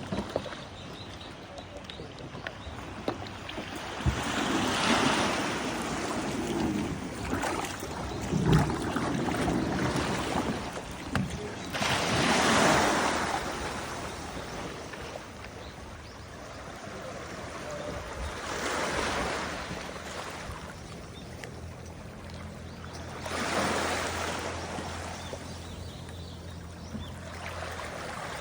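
Sea waves washing in slow surges, about four swells spaced several seconds apart, over a steady wash of water and wind.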